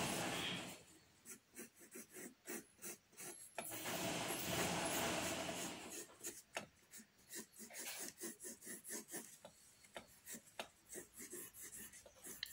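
Pencil shading on drawing paper: many short, quick scratching strokes, with two longer stretches of steady rubbing across the paper, at the very start and again about four to six seconds in.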